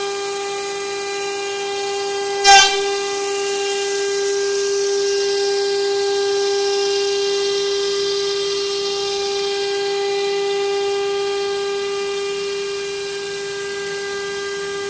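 CNC router spindle running at a steady high pitch as it V-carves a pattern into wood. A single sharp knock comes about two and a half seconds in.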